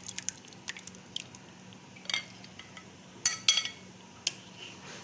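A metal spoon clinking and scraping against a glass bowl while spreading a thick yogurt mixture over fried pakoras, with soft wet clicks and two sharp ringing clinks a little past halfway.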